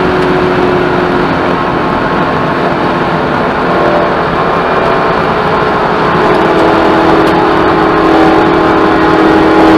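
Spec Corvette's V8 engine running hard at steady speed round the oval, heard from inside the car with heavy wind and road noise. The engine note shifts a little about a second in and grows slightly louder about six seconds in.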